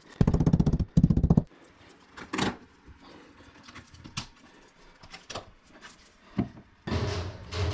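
Two loud, rapid clicking buzzes, then scattered clicks and creaks and a rougher stretch near the end: plastic tile-leveling clips and large porcelain wall tiles creaking under pressure as they are tightened together. They are the random noises that get a "holy moly".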